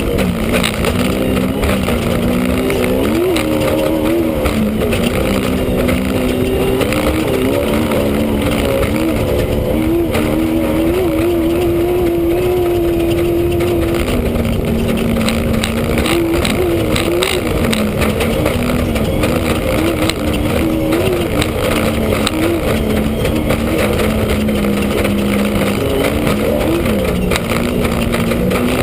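Off-road race vehicle's engine heard from inside the vehicle, its pitch rising and falling with the throttle and held steady for a few seconds around the middle, over a constant din of many short knocks and rattles.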